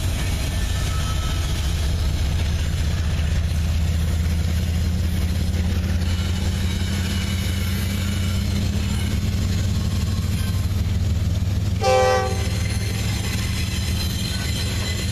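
Double-stack intermodal train of loaded container well cars rolling past with a steady low rumble. About twelve seconds in, a short, loud horn-like blast sounds over it.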